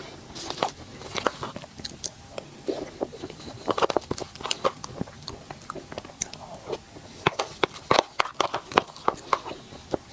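Close-miked eating sounds: a sweet dessert being bitten and chewed, with irregular clusters of crisp clicks and crunches.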